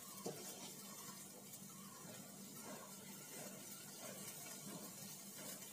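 Quiet room tone: faint hiss with a low steady hum and one light click shortly after the start.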